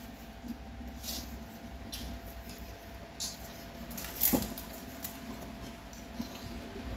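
Chopsticks clicking and scraping against plates and bowls during a meal: a few light clicks, the loudest about four seconds in, over a steady faint hum.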